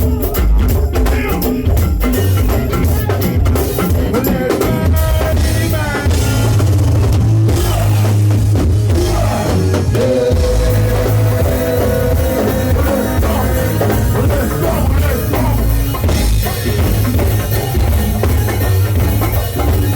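Go-go band music: a steady drum-kit groove over heavy bass, with a held note in the middle range about halfway through.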